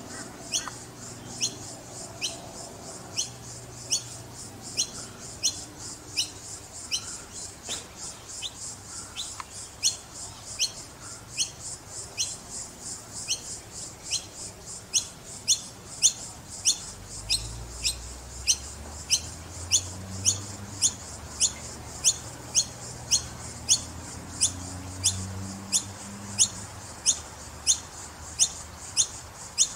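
Noisy Miner fledglings calling: short, sharp, high-pitched notes repeated steadily, about one a second at first and quickening to nearly two a second in the second half, typical of begging young.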